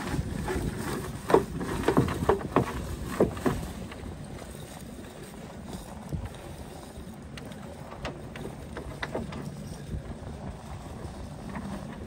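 Fishing gear knocking and clattering against a small open boat: a quick run of sharp knocks over the first four seconds, then a steady low rumble of wind and water with a faint low hum and a few scattered clicks.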